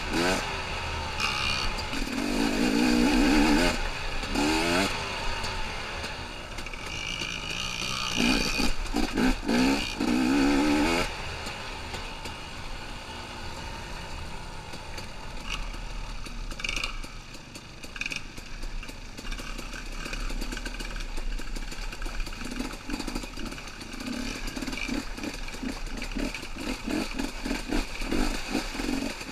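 Two-stroke dirt bike engine revving up and down repeatedly and hard on a trail ride, loudest in roughly the first ten seconds, then running lower and steadier for the rest.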